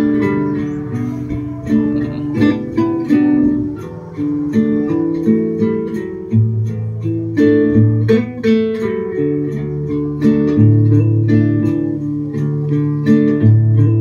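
Instrumental acoustic guitar music, plucked notes in a steady rhythm.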